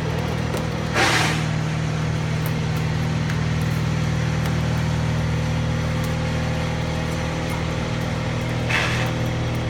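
An engine running steadily at a constant speed, like idling, with two brief hissing bursts: one about a second in and one near the end.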